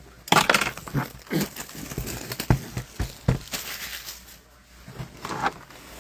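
Foil wrapper of a hockey trading-card pack crinkling and crackling as it is torn open and handled, with a few sharp clicks.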